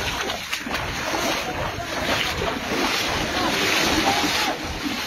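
Floodwater rushing by as a steady, noisy wash of water.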